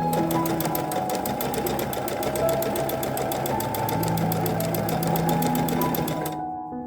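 Sewing machine stitching in one steady run at about ten needle strokes a second, stopping about six seconds in.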